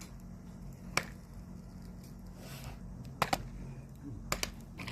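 Corn kernels popping over a charcoal shichirin: sparse, sharp single pops, one about a second in and then two quick pairs later, over a steady low hum.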